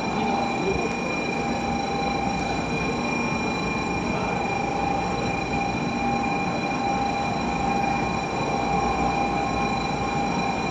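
Shinkansen train heard from inside while running: a steady rumble and hiss with a constant high whine of several tones, which stops abruptly near the end.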